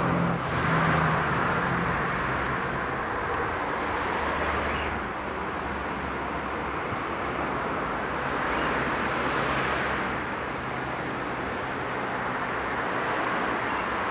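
Steady roar of distant engine noise, swelling and easing slightly every few seconds.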